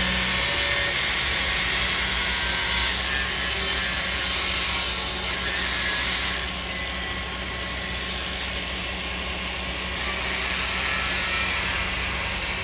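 Handheld power tool grinding at the steel anchor bolts on a concrete signal footing: a continuous harsh grinding that eases a little about halfway through and picks up again near the end. A steady low hum runs underneath.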